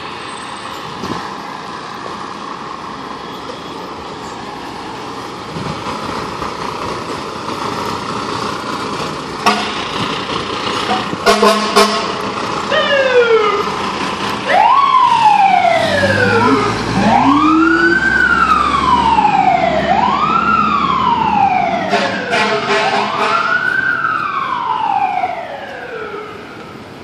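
Fire truck's diesel engine running as it pulls out, then a few short air-horn blasts, followed by its siren wailing, rising and falling over and over. The siren fades near the end as the truck drives away.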